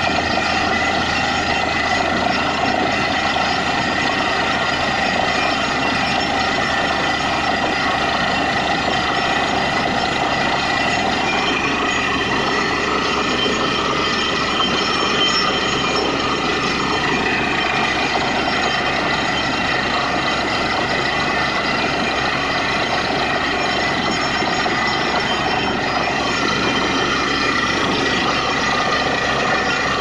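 Truck-mounted borewell drilling rig running steadily: a loud, unbroken engine and air-compressor noise with a steady high whine, as air-blown water and rock slurry gush up out of the bore.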